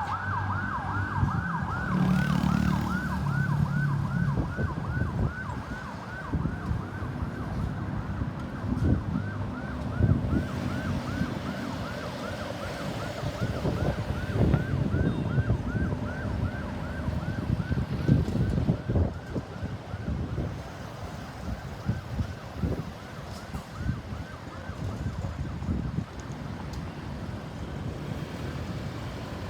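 Ambulance electronic siren on a fast yelp, rapid rising-and-falling wails about four a second. It grows fainter and dies away after about twenty seconds, over a steady rumble of road traffic.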